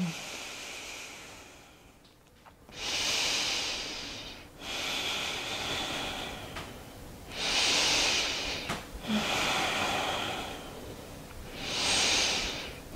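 A woman's slow, deep yoga breaths, audible inhales and exhales of about two seconds each following one another with short pauses, while she holds a squat over a chair.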